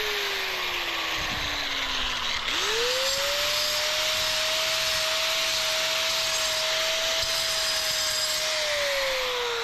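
Handheld electric angle grinder cutting a concrete paver. Its motor whine falls as it coasts down, climbs back quickly about two and a half seconds in as it is triggered again, and holds steady over a gritty grinding hiss. Near the end it falls away again as it spins down.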